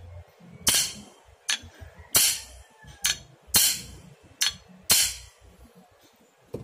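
Claw hammer striking a clutch shoe on the pivot post of a Yamaha Mio MXi 125 scooter's clutch backplate, to knock loose a lining seized on by rust. Seven sharp blows over about four seconds, then a light tap near the end.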